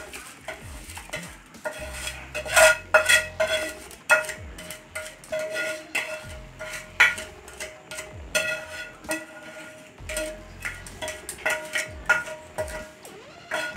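A spoon stirring semolina into hot water in a steel kadhai, clinking and knocking against the metal pan many times, with the pan ringing briefly after the harder knocks.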